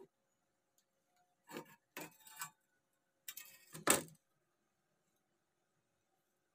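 A restored meat cleaver with a wooden handle being handled and laid down on a hard table: a few short, faint clatters and scrapes around two seconds in, then a sharper knock about four seconds in as it is set down.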